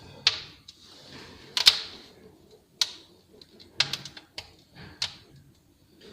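Burning firewood crackling and popping in a closed fireplace firebox during its first firing, with six or seven sharp, irregularly spaced pops, the loudest about one and a half seconds in.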